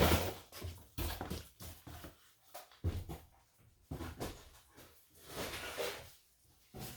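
Intermittent knocks and rustles of paper manuals and boxes being handled and set down. A few sharp knocks come about a second apart, then a longer rustle near the end.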